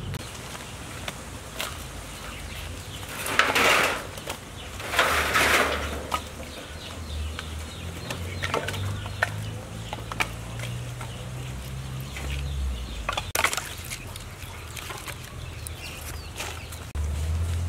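Chickens clucking and flapping, with two loud rustling bursts a few seconds in and another later, amid scattered sharp knocks of split firewood being picked up from a woodpile.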